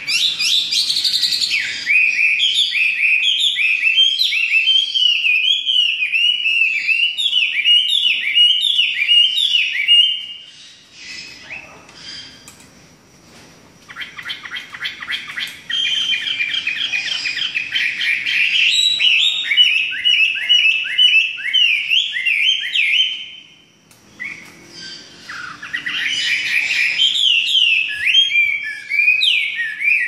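Chinese hwamei singing in long, rapid runs of repeated sliding notes, in three phrases broken by pauses of a few seconds, about ten seconds in and again near twenty-four.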